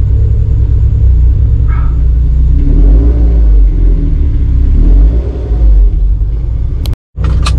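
Supercharged Mazda MX-5 NC's four-cylinder engine running hard under a heavy low rumble, its revs rising and falling. About seven seconds in the sound cuts out completely for a moment, then returns with a short burst of noise.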